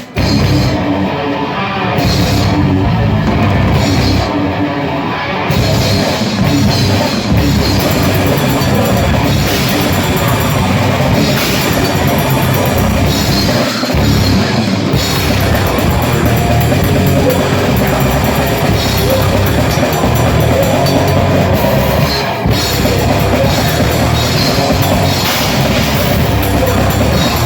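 Grindcore band playing live at full volume: a dense, unbroken wall of fast drums and distorted guitar and bass, with two brief drops about 14 and 22 seconds in.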